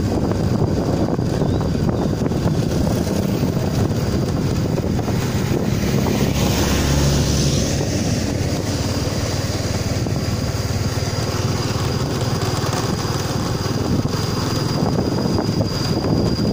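Steady wind noise buffeting the microphone over the rumble of a moving vehicle, with a thin high steady whine above it.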